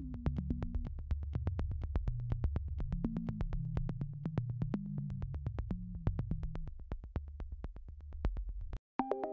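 Background electronic music: low synthesizer chords over a steady ticking beat of about five clicks a second. Near the end it cuts out for a moment and a brighter synth line starts.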